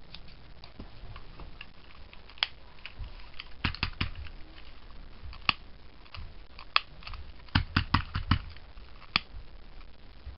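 Sharp clicks and snips from scissors trimming paracord ends and a long-nosed click lighter being handled and sparked. The clicks are scattered, with quick runs of several about four seconds in and about eight seconds in.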